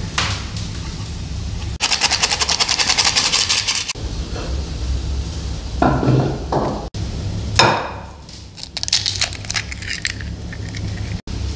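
Kitchen handling sounds: flour sifted into a wooden bowl with a fast, even rattle of the sieve, a few knocks and scrapes of utensils, then a sharp crack about two-thirds of the way through as an egg is broken into a bowl, over a low steady hum.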